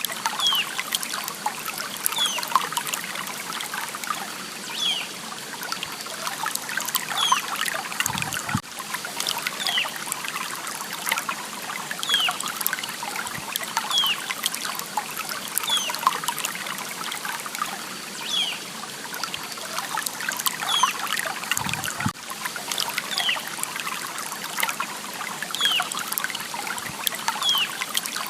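A small stream trickling and splashing steadily. Short, high chirps falling in pitch repeat every second or two over it.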